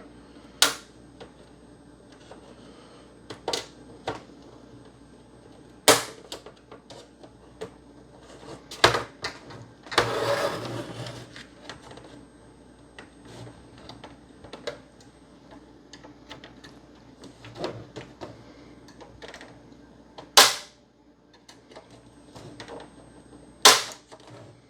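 Plastic snap-fit clips of an Xbox One S case cracking loose one at a time as the bottom panel is pried off: sharp single snaps every few seconds, the loudest about twenty seconds in, with a second or so of scraping about ten seconds in.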